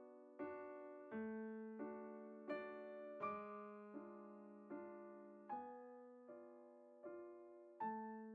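Soft background piano music: slow chords struck about every three-quarters of a second, each left to ring and fade.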